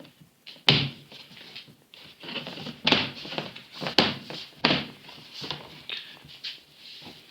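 Plastic cover of a washing machine being pried open and handled: a series of sharp knocks and thunks, four of them louder, with scraping and rustling between.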